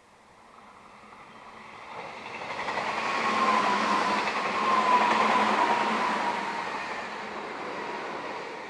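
Meitetsu electric train passing by: the running noise builds up, is loudest in the middle, then fades away, with a high whine that falls slightly in pitch as it goes past.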